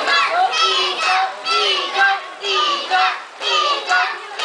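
Many children's voices shouting and cheering at once, high-pitched and overlapping, with a short lull about three seconds in.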